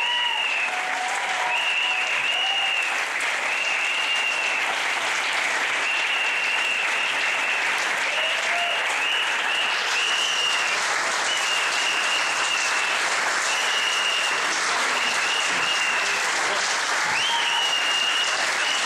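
Audience applauding steadily after a tango performance, with repeated high whistles over the clapping.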